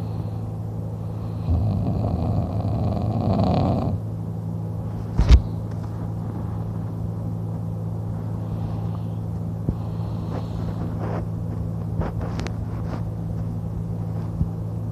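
A man snoring through an open mouth while sleeping on his back: one long rough snore from about a second and a half in to about four seconds, then quieter breathing. A short thump comes about five seconds in, and a steady low hum runs underneath throughout.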